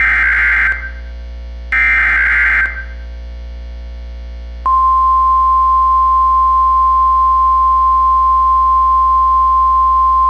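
Emergency Alert System broadcast: two buzzing digital SAME header data bursts, each about a second long, then about two seconds in the clear a steady 1050 Hz National Weather Service warning alarm tone starts and holds. This is the alert header and attention signal that open a severe thunderstorm warning.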